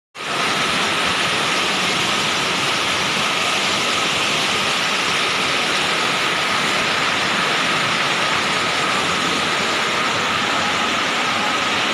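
Torrent of floodwater rushing past, a steady, even rushing noise.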